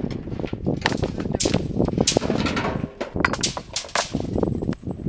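Field stones being unloaded by hand from a tractor trailer, striking and clattering against other stones in quick, irregular knocks.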